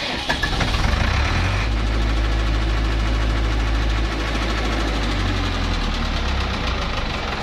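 Diesel engine of a 50 kVA generator set running steadily just after starting up, with a strong low hum that shifts slightly a few times as the engine settles.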